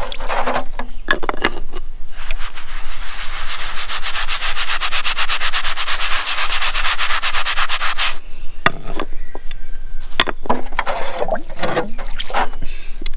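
A brush scrubbing a wet concrete paving slab, with rapid, even back-and-forth strokes for several seconds, then slower separate strokes. It is washing rust remover off a rust spot.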